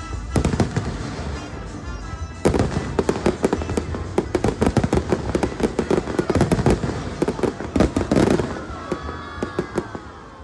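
Aerial fireworks shells bursting in a rapid volley, a dense run of sharp bangs and cracks that starts in earnest about two and a half seconds in and thins out near the end.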